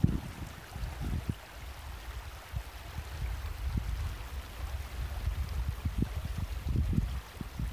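Shallow, stony river flowing over rocks with a steady rush, with wind gusting on the microphone in irregular low buffets.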